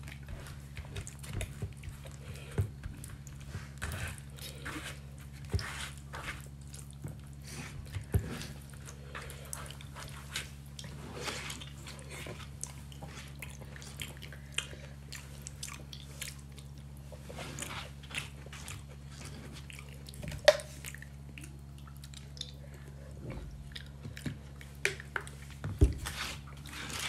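Close-up chewing and wet mouth smacks of a person eating spicy vegetable khichri, with occasional crunches, over a steady low hum. One sharp, louder click comes about twenty seconds in.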